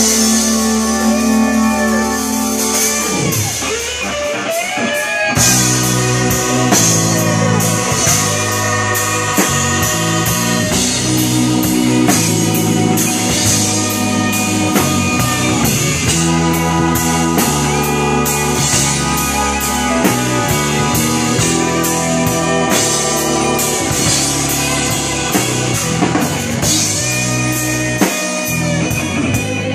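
Live blues-rock band playing: drum kit, electric bass, electric guitar and keyboards together over a steady beat, with notes bending in pitch.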